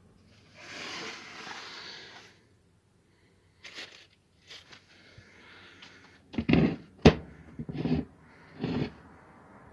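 A steel swivel-plate (lazy-susan) bearing being handled, with a rustling noise at first, then a run of knocks and clacks in the second half, one sharp click among them, as the plate is handled and set on a concrete floor.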